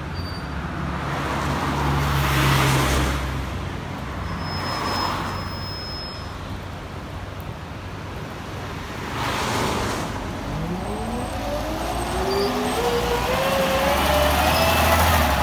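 Scania OmniLink CL94UB city bus's diesel engine running at a stop, then pulling away and accelerating past, with a whine rising steadily in pitch over the last five seconds as it gets louder. Other traffic swishes past about two and nine seconds in.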